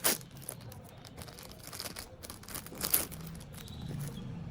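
Packaging being handled and unwrapped: paper and plastic crinkling and rustling, with sharp crackles just after the start and again about three seconds in.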